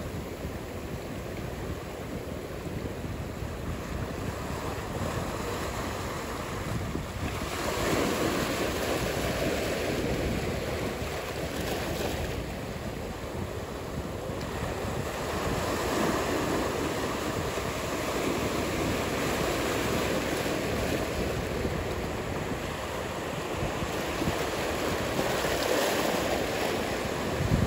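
Ocean surf: a steady rush of breaking waves that swells louder three times, about eight to ten seconds apart, as waves come in.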